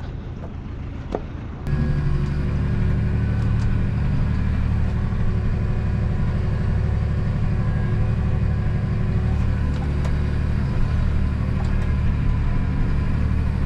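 Massey Ferguson tractor's diesel engine running steadily, heard from inside the cab. It comes in abruptly about two seconds in, after a short stretch of faint outdoor wind noise with a single click.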